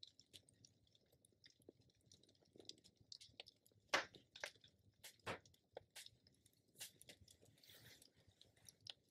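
Near silence with faint, scattered small clicks and soft rustles of hands handling objects and bedding, the sharpest clicks about four and five seconds in.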